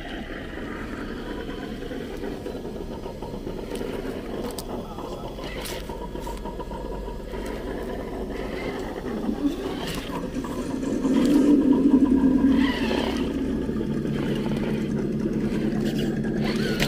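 Traxxas TRX-4 RC rock crawler's electric motor and geared drivetrain whining as it crawls over rocks, with a few sharp clicks of tyres and chassis on stone. The whine gets louder about ten seconds in, then settles to a steady hum.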